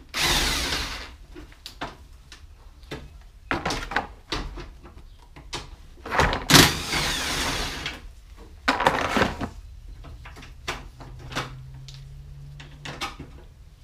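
Cordless impact wrench run in four short bursts, the longest about two seconds, backing fasteners out of a car's engine bay, with clicks and clinks of tools and parts between the bursts.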